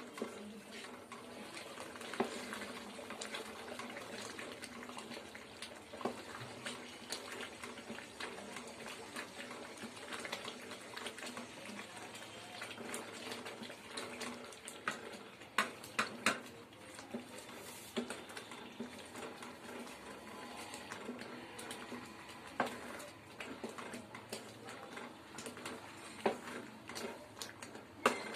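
Wooden spatula stirring thick semolina upma (rava kichadi) in a metal kadai: soft scraping and squelching over a steady low bubbling, with scattered sharp knocks of the spatula against the pan, several close together about halfway through.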